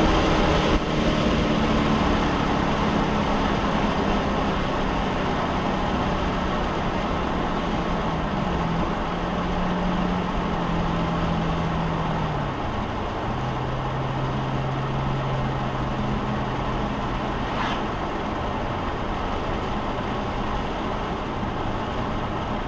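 A car driving, with a steady low engine drone over road and tyre noise. The engine note slides down in pitch at the start and drops again twice near the middle as the revs fall, then holds steady.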